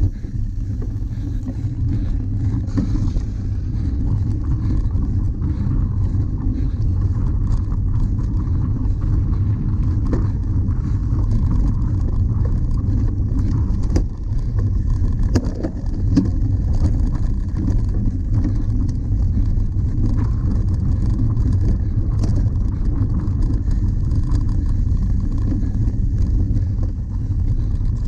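Wind rumbling steadily on the microphone of a bike-mounted camera as a cyclocross bike is ridden over dirt and grass. Tyre noise runs underneath, with a few light knocks and rattles from the rough ground.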